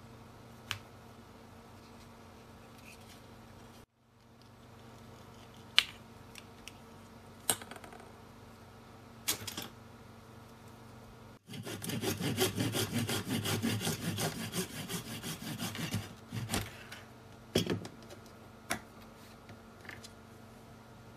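A few small clicks and taps of handwork on a plastic part, then about halfway through a thin hobby saw cutting a white resin cable-raceway molding with rapid back-and-forth strokes for about four seconds, followed by a few more clicks.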